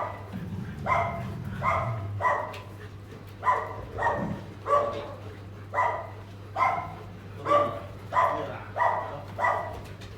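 A dog barking over and over, about a dozen sharp barks at roughly one every three-quarters of a second, with a steady low hum underneath.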